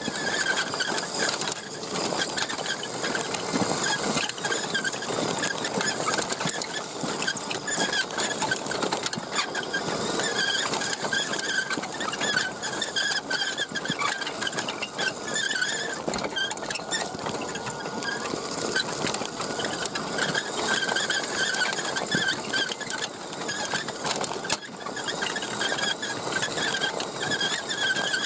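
Axial SCX10 1/10-scale RC truck driving on a gravel track: its electric motor and gear drive whine, rising and falling with the throttle, over the rattle and crunch of small tyres and a towed trailer on loose stones.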